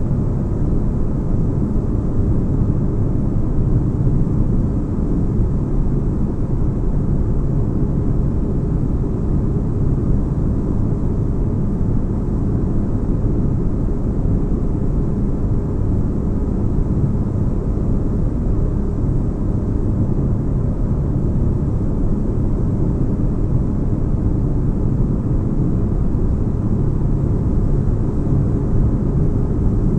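Sci-fi spaceship interior ambience: a steady, deep, bass-heavy noise with no changes or events.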